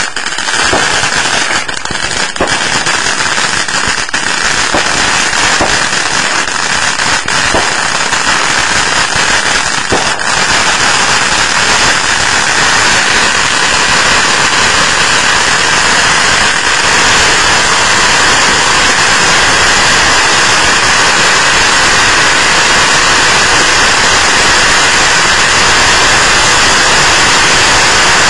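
Ground fountain firework spraying sparks with a loud, steady hiss. A few sharp crackles come in the first ten seconds, and the hiss grows louder and fuller after that.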